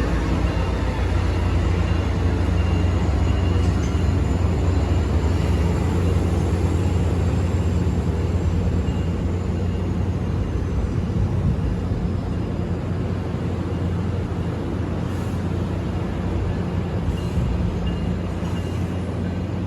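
MARC commuter train arriving: a steady low rumble of the train rolling in that eases slightly as it slows, with a thin high squeal that slides slowly down in pitch partway through.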